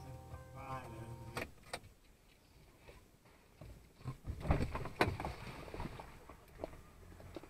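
Car engine idling, heard from inside the cabin. There are a couple of clicks about a second and a half in, and a cluster of loud thumps and knocks around four to five seconds in.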